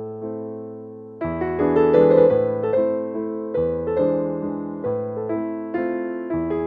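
Background electric-piano music: chords and a melody line, each note fading after it is struck, with a brief thinning about a second in before fuller chords return.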